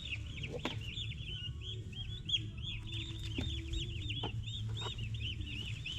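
A brood of young turkey poults peeping: many short, high chirps overlapping several a second, over a steady low hum and a few faint knocks.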